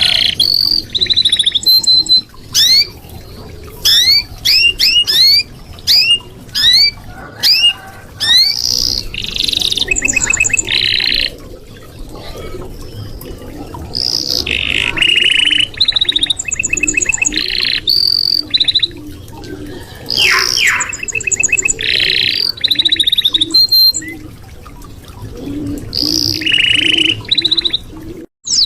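Red-factor canary singing a long, varied song. It opens with a run of rising whistled sweeps repeated one after another, then moves into fast trills and buzzy rolls broken by short pauses.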